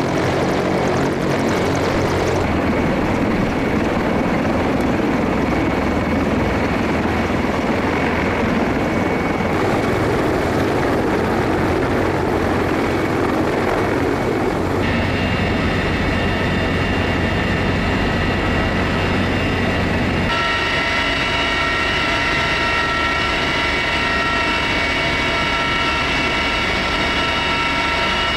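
CH-53E Super Stallion heavy helicopter running, a loud, steady rotor and turbine noise that changes character abruptly several times. In the last third a steady whine of several tones stands out above the noise.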